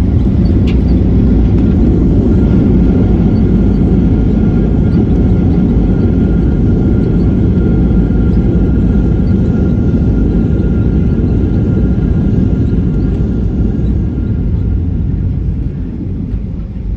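Boeing 737-800 cabin rumble during the landing rollout: loud, steady engine and runway noise heard from inside the cabin, easing off near the end as the jet slows.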